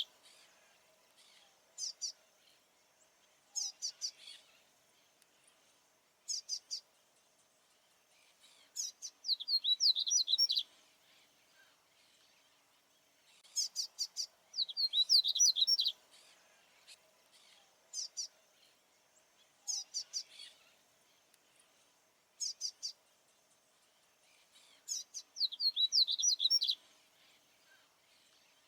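Male papa-capim baianinho, a Sporophila seedeater, singing: quick high-pitched phrases of rapid notes, longer phrases about every five or six seconds with short bursts in between, over a faint steady hum.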